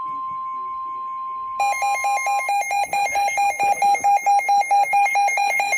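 NOAA Weather Radio's steady 1050 Hz warning alarm tone, signalling that a warning is coming. About a second and a half in, a weather alert radio's electronic alarm (a Midland WR-300) sets off in loud, rapid two-pitch beeping, several beeps a second, and the steady tone stops a second later.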